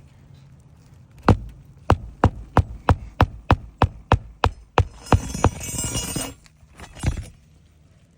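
Hammer driving nails into roof shingles: a run of about a dozen sharp strikes, roughly two a second, then a second or so of scraping, then one last strike.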